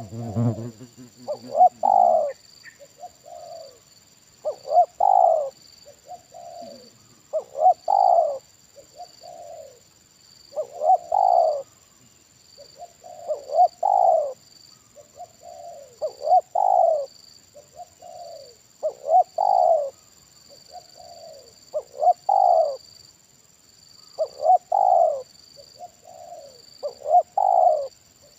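Spotted dove cooing its song over and over, a louder phrase about every three seconds, each followed by a softer one. A steady high insect whine runs underneath.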